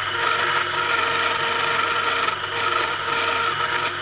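Small converted toy mini-lathe running and turning an iron rod: its little motor gives a steady whine of several tones over a continuous scraping hiss from the cutting.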